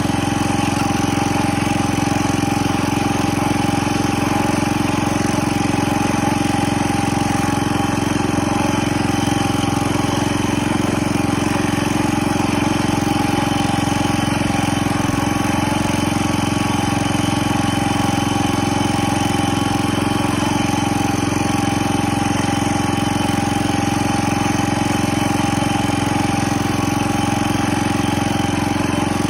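Engine of a 1970 John Deere 140 H3 garden tractor running at a steady speed.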